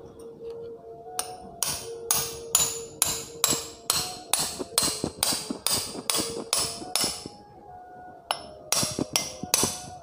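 Hammer tapping a replacement steel shaft into a table fan's rotor: a run of about fifteen sharp metal strikes, two or three a second, then a short pause and four more near the end.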